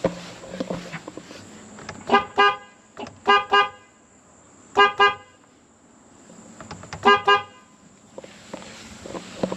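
A horn beeping in four quick double toots, each a short, steady-pitched beep-beep, spread over several seconds.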